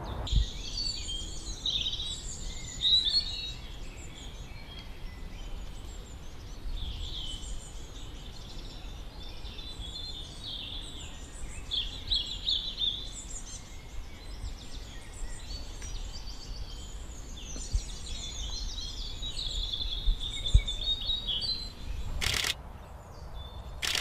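Small woodland songbirds singing and calling in thin chirps and trills, one phrase after another, over a steady low rumble of wind. About 22 seconds in a short sharp burst of noise cuts across it.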